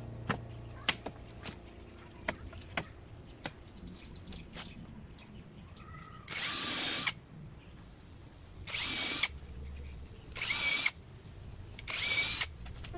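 A few light wooden knocks as a stair tread is set in place, then a cordless drill runs into the wooden step in four short bursts, each under a second long.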